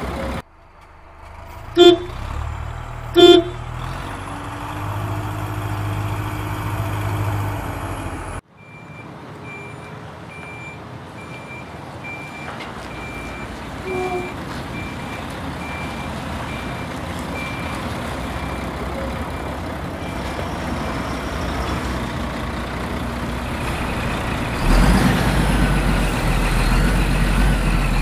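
Heavy truck sound effects laid over toy play: a truck engine running with a reversing alarm beeping about once a second. Two loud short blasts come about a second apart near the start.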